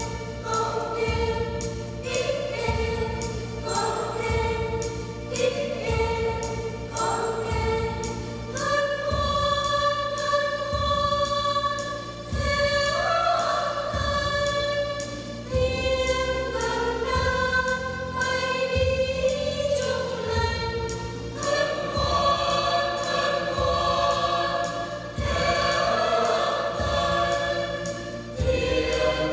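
Church choir singing in several voices with long held notes, over an instrumental accompaniment with a steady beat.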